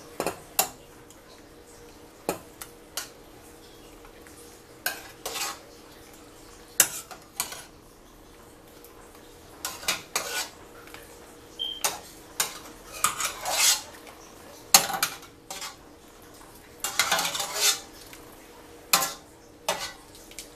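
Metal ladle clinking and knocking irregularly against a stainless steel pot and a ceramic plate as boiled tomatillos are scooped out of the water one at a time, with water splashing in the pot between the knocks.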